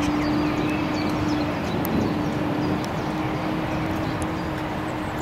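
Outdoor ambience: a steady rushing noise with a constant low hum under it, and small birds chirping now and then.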